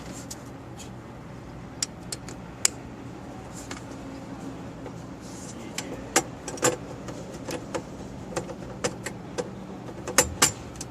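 Scattered light clicks and knocks of a tail-light bulb socket being handled and fitted into a Toyota Corolla's rear light housing, more frequent in the second half, over a steady low hum.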